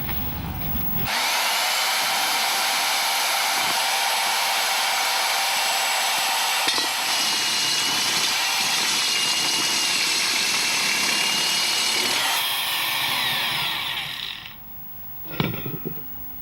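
DUSS diamond core drill starting up and running steadily as its diamond core bit cuts into a sewer pipe, with a high whine over the cutting noise. It is switched off about 12 seconds in and its whine falls as the motor winds down, followed by a single knock near the end.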